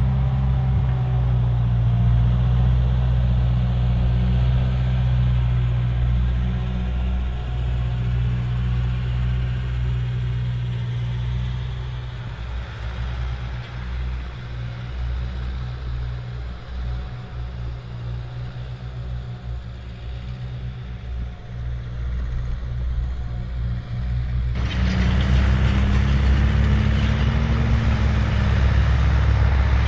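Ferguson TE20-based articulated four-wheel-drive tractor's four-cylinder engine running steadily under load as it pulls a disc cultivator through the soil. The sound drops somewhat in the middle and comes back louder about 25 seconds in.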